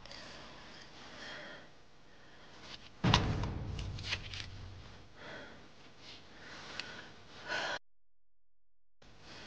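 A woman waking groggily, with sighing and gasping breaths. About three seconds in comes a sudden thump, followed by a few light clicks.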